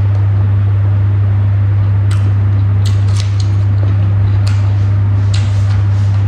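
Eating by hand and chewing: a few short, sharp mouth smacks and clicks, scattered through the last two-thirds, over a loud steady low hum.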